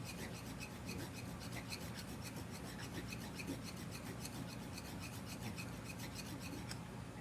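Hand file rasping across the metal mating surface of a Jeep brake caliper in quick, even strokes, stopping near the end. The surface is being filed down to bring a low spot level, where the caliper was leaking.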